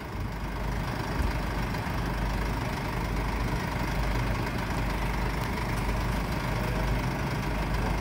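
Mercedes-Benz Sprinter van's diesel engine idling steadily.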